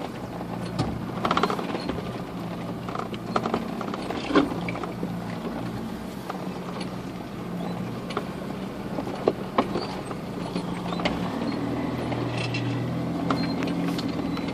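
Inside a 4WD's cabin crawling over rough, rutted ground: a steady low engine hum with scattered knocks, clicks and creaks from the body and fittings jolting over the bumps. The engine note grows stronger near the end.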